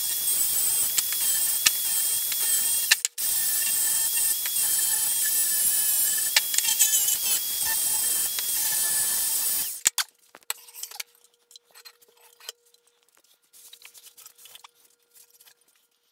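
DeWalt angle grinder running with its disc against small steel pieces: a harsh, steady grinding hiss over a high motor whine, broken off for a moment about three seconds in. It stops about ten seconds in, leaving only faint clicks and a faint steady hum.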